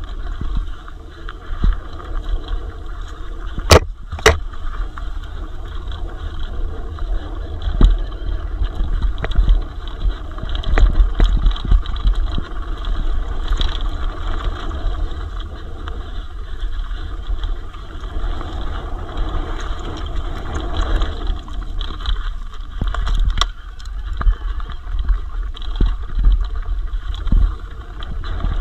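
Wind buffeting the camera's microphone over the clatter and rattle of a Cube Stereo e-mountain bike ridden fast down rough enduro trail, with a few sharp knocks from hits on the terrain, two close together about four seconds in and another late on.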